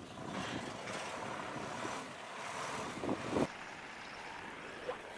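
Harvesting machinery running with a steady, even noise, and a short cluster of knocks about three seconds in.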